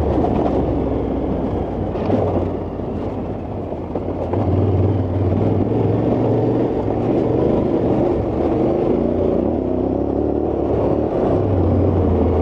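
Yamaha Ténéré 700's parallel-twin engine running as the bike rides a dirt track. It falls away about two seconds in and picks up again about four seconds in.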